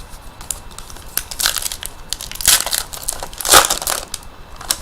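Hockey card pack wrapper being torn open and crinkled, in a few crackling bursts, the loudest about three and a half seconds in.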